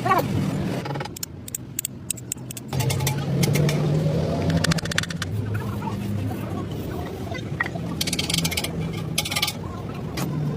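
An engine running steadily with a low hum that eases off for a moment about a second in, with scattered sharp clicks and knocks over it.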